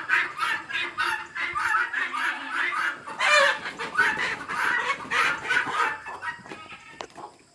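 Chickens clucking and squawking in rapid, overlapping calls, with one louder squawk about three seconds in, dying away near the end.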